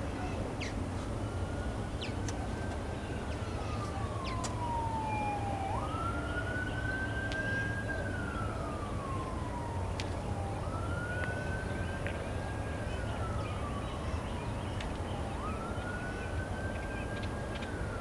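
A siren wailing in slow cycles about every five seconds: the pitch climbs quickly, holds, then slides slowly down before climbing again. A few short, high bird calls sound over it in the first few seconds.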